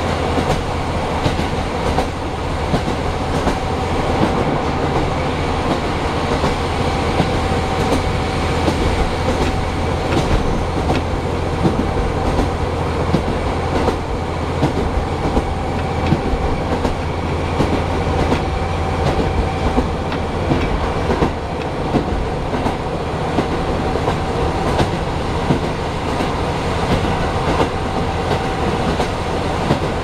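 Steady running noise of a diesel local train heard inside the carriage: a rumble of wheels on the rails and the engine, a faint steady whine, and light scattered clicks from the track.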